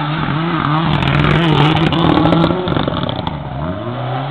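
Mitsubishi Lancer Evolution's turbocharged four-cylinder engine revving hard while drifting, its pitch held high and wavering, with short crackles through the middle. About three and a half seconds in the revs drop, then climb again.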